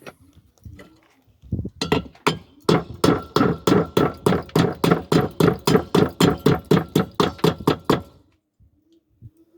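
Rapid hammer blows on a metal pot, about four strikes a second with a slight metallic ring. They start about a second and a half in and stop about eight seconds in.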